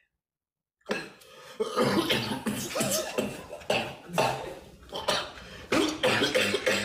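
A short dead silence, then a person coughing repeatedly in loud, irregular bursts.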